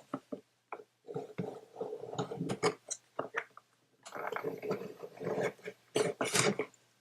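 Packaging being handled during an unboxing, with irregular rustling, crinkling and small clicks in two bouts, about a second in and again around the middle.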